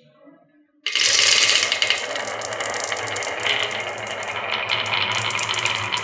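Many marbles clattering and rattling as they roll down wooden HABA marble-run tracks, starting suddenly about a second in and running on as a dense stream of clicks.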